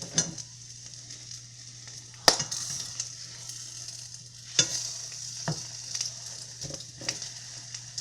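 Eggs frying in a pan, sizzling steadily, with a utensil clicking and knocking against the pan a few times, sharpest about two seconds in and again around four and a half seconds in.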